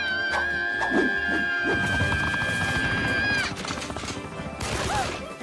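Cartoon snowball-fight soundtrack: music carrying a long, high held note that ends about three and a half seconds in, over sharp hits and whooshes of thrown snowballs.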